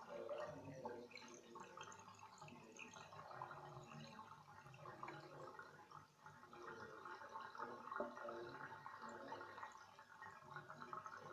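Faint, irregular trickling and gurgling of water swirling down a drain in a whirlpool.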